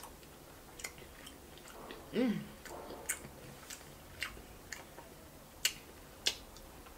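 Close-miked chewing of a bite of sausage: scattered wet mouth clicks and smacks. A short falling hum from the voice comes about two seconds in.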